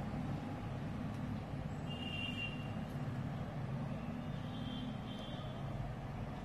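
Steady low background rumble of road traffic, with two brief high-pitched tones: one about two seconds in, another a little past four seconds in.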